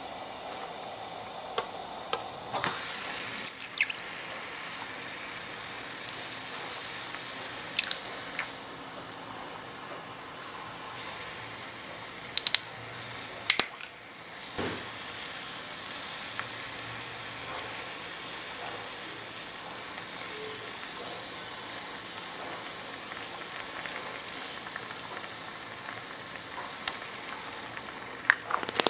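Small aluminium pot of beef broth simmering over a miniature stove: a steady sizzling bubble. A few light clicks and knocks come through from handling the pot lid and a small seasoning jar.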